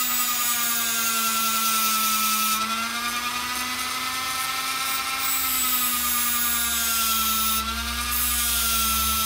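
High-speed rotary tool spinning a green 3M abrasive bristle disc (1000 grit) against a metal tube, a steady motor whine with a high abrasive hiss. The pitch sags slightly a few times as the disc takes load.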